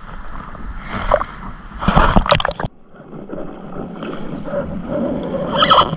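Shallow lagoon water sloshing and splashing around someone wading, with two louder splashes about one and two seconds in. A little before the halfway point the sound turns suddenly duller and steadier, to a muffled wash of water.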